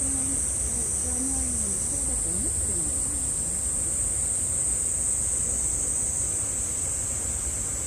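Steady high-pitched drone of cicadas in midsummer, with faint distant voices in the first few seconds and a low rumble underneath.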